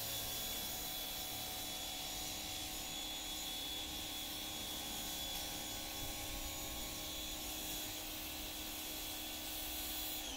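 Steady machine whine from a running motor: a stack of even tones holding one pitch.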